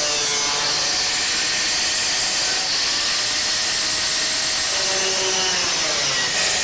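Power tool cutting clamped stainless steel sheet: a loud, steady cutting noise with a motor whine that wavers and dips under load.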